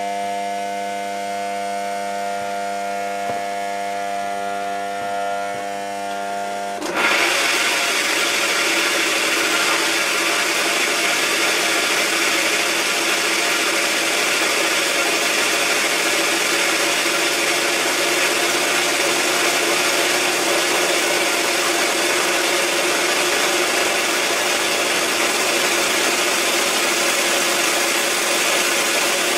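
A steady electrical hum with several fixed tones. About seven seconds in it gives way suddenly to the much louder, steady whir of the electric hover mower's motor and fan running at speed.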